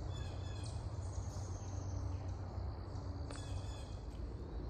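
Woodland ambience: faint short bird chirps about a second in and again about three and a half seconds in, and a thin high insect-like call, over a steady low rumble.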